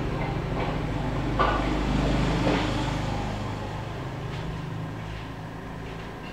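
A low, steady mechanical rumble with a hum, like an engine running, slowly fading, with a couple of faint taps about one and a half and two and a half seconds in.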